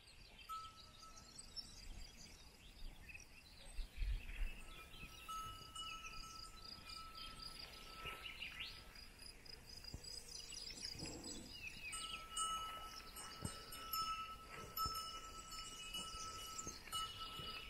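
Faint bell ringing on and off, most likely a cowbell on a grazing cow, with birds chirping in the meadow.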